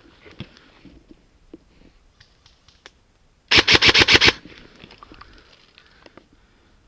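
Airsoft gun firing a short full-auto burst of about eight rapid shots in under a second, about halfway through. Faint rustling and light clicks come before and after the burst.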